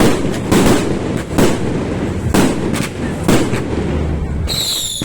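Beehive-festival bottle rockets going off in a barrage: sharp bangs roughly every half second to a second. About four and a half seconds in, high rocket whistles take over.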